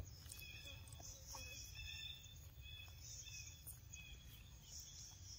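Faint outdoor ambience: repeated short, high chirps and a pulsing high hiss of small wild creatures, over a low steady rumble.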